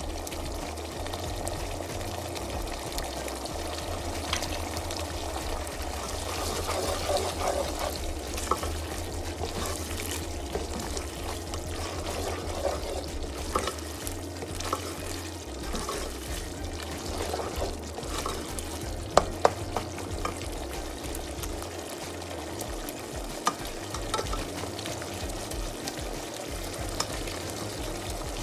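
Tomato-and-tuna sauce sizzling in a non-stick frying pan as it is stirred with a slotted spatula, the spatula scraping through the sauce, with a couple of sharp taps against the pan about two-thirds of the way through.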